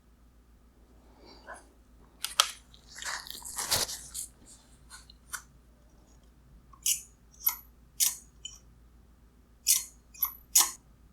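Handling noise: crackling and rustling for about two seconds, then about six separate sharp clicks and taps, over a faint steady hum.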